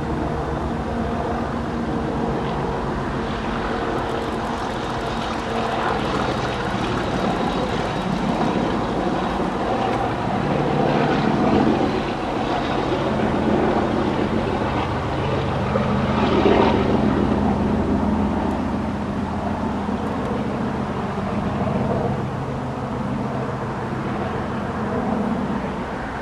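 Diesel locomotive engine, the English Electric V12 of a Class 97/3 (rebuilt Class 37), running under power as the engine passes light. Its note shifts in steps and it swells twice, around halfway through.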